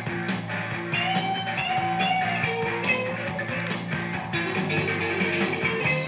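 Blues-rock record playing from a 7-inch vinyl single on a turntable: electric guitar, bass and drums with a steady beat, and a bending guitar note about a second in.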